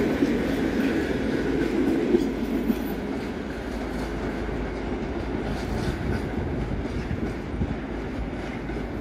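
A departing passenger train's coaches rolling away over the station tracks and points, the wheels clicking over rail joints; the rumble grows quieter after about three seconds as the train recedes.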